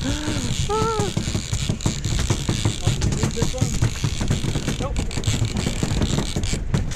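Steady low rumble of wind on the microphone and the jet ski's engine on open water, with a brief wordless vocal exclamation in the first second.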